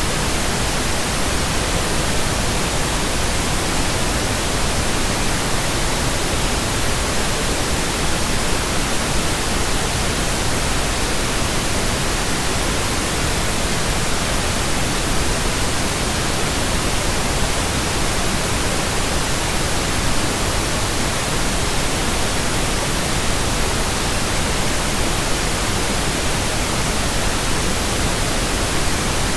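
Steady synthetic pink noise: an even, unchanging hiss spread across all pitches.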